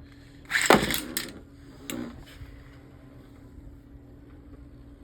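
Two Beyblade spinning tops are ripped from their launchers and clatter into a plastic stadium about a second in, with a sharp clack near two seconds. They then spin on with a faint steady whir.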